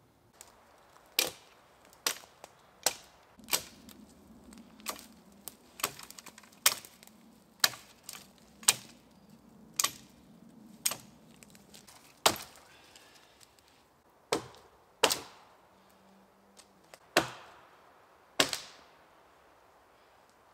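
Dry dead spruce wood being broken up for firewood: a run of sharp woody cracks, roughly one a second.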